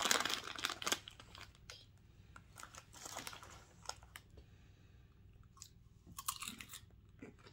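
Foil potato-chip bag crinkling as a hand reaches in during the first second, then Lay's potato chips crunching as two people chew them, in scattered crisp crackles.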